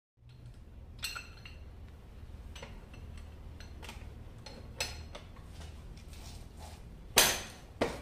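Steel wrench clinking and clanking against the bolts of a chiller pump strainer's cover as they are worked loose: scattered sharp metallic clinks, the loudest clank near the end, over a steady low hum.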